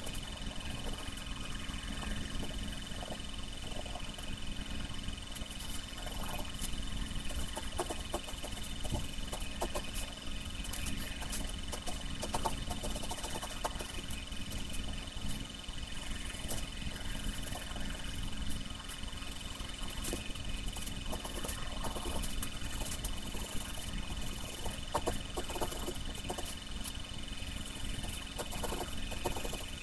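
Wooden pencil scratching on paper as lines are sketched, in short irregular strokes, over a steady background hum with a thin high whine.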